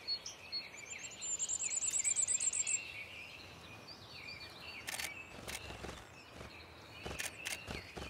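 Common firecrest singing: a thin, rapid series of very high notes lasting about a second and a half, among scattered calls of other small birds. A few sharp camera-shutter clicks come in the second half.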